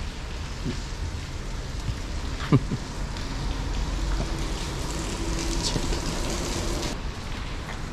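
Steady rain noise with a low rumble underneath, and one sharp knock about two and a half seconds in.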